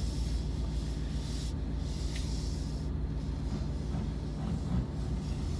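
Steady low road and engine rumble heard inside a moving car's cabin, with a faint hiss above it.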